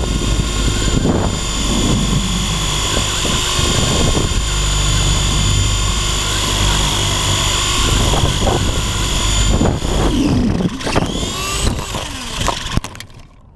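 WLtoys V913 RC helicopter's electric motor and rotor whining steadily with wind buffeting, heard from its onboard camera. Near the end the pitch swoops down as it comes to the ground, a few sharp knocks follow as it hits the grass in a crash, and then the motor cuts out.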